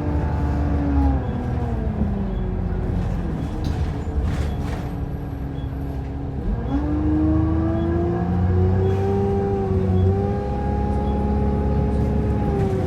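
Optare Versa single-deck bus heard from on board: a pitched drivetrain whine over a low engine rumble. The whine falls away as the bus slows, then rises again as it pulls away, about six and a half seconds in, and holds steady near the end.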